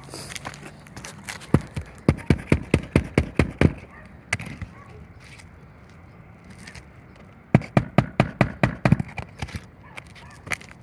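Hammer blows on a shingle roof, in two quick runs of about four or five sharp strikes a second: a first run early on and a second about three-quarters of the way in.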